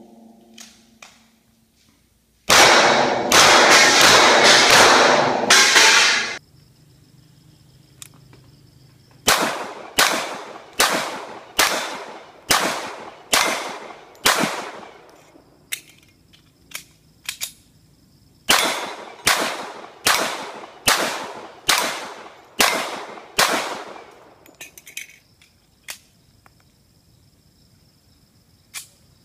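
Gunfire from handguns firing at steel targets. A quick burst of shots close together comes a few seconds in. After a pause, two strings of about nine and eight single pistol shots follow, each shot roughly two-thirds of a second apart.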